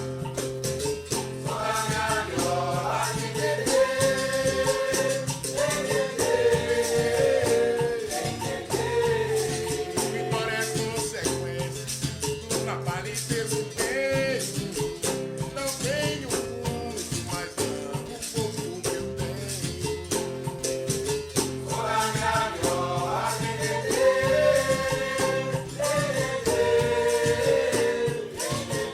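A sung song: a voice over a steady shaker rattle and a plucked-string accompaniment.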